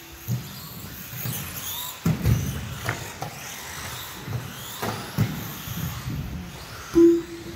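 Electric 1/10-scale RC race cars running on an indoor carpet track, with faint motor whines rising and falling in pitch and scattered knocks and thuds. A short, loud beep sounds about seven seconds in.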